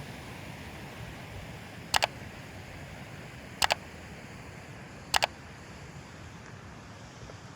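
Three sharp double clicks, each two quick clicks close together, about a second and a half apart, over a steady background hiss.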